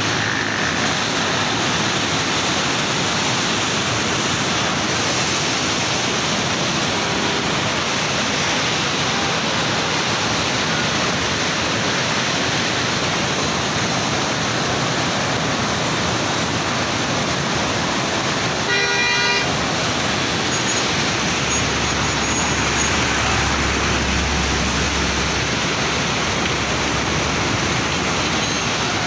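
Muddy floodwater rushing and churning through a river barrage, a loud, steady rush of water. About two-thirds of the way in, a horn toots once, briefly.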